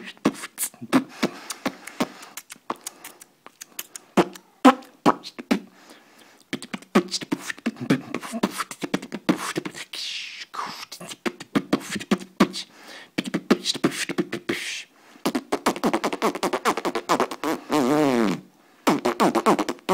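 Human beatboxing: a fast run of percussive mouth clicks and pops mixed with hummed, pitch-bending vocal sounds, ending in a long falling vocal glide near the end.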